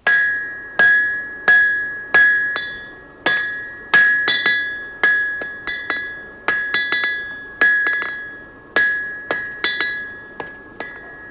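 Blacksmith's hammer striking an anvil in an uneven working rhythm: single blows mixed with quick double and triple taps. Each strike rings at the same bright metallic pitch and dies away. The blows grow lighter near the end.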